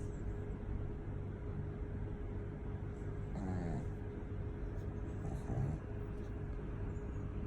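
Pug snoring, with two snoring breaths, one about three and a half seconds in and one about five and a half seconds in, over a steady low rumble.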